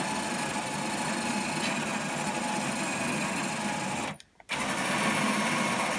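R2-D2 droid's dome drive motor running, its plastic pinion turning the 3D-printed ring gear so the dome ring rotates: a steady motor whine with gear noise. It cuts out briefly a little after four seconds in, then starts again.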